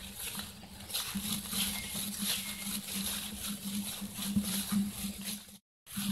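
Footsteps and rustling as someone walks through wet grass and undergrowth, an irregular patter of brushing and treading. The sound drops out completely for a moment near the end.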